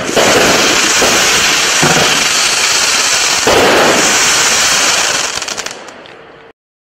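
Big Finish 50-shot firework cake firing its last shots: continuous crackling from crackle palms with a couple of heavier bursts among it. About five seconds in it thins to scattered crackles, then the sound cuts off.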